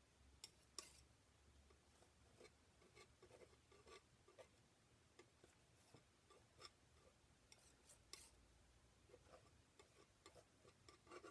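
Near silence: faint scattered clicks, taps and light scrapes of painting tools working oil paint on a painting panel, over faint room tone.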